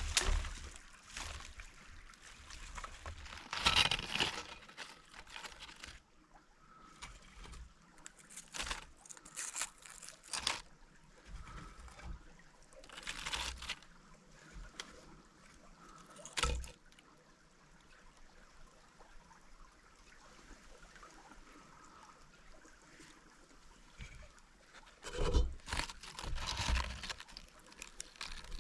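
Stream water trickling, with irregular bumps and rustles close by, the loudest cluster near the end.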